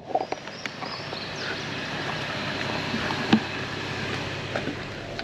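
Drinking water poured onto a still-hot, abandoned campfire, the embers hissing steadily as it is put out, with a few small pops and one sharper pop a little past halfway.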